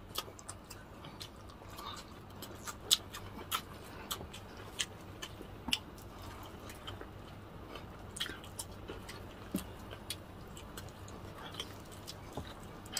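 Close-up eating sounds from crispy fried chicken eaten by hand: chewing and soft mouth sounds with scattered short, sharp crackles and clicks at an irregular pace.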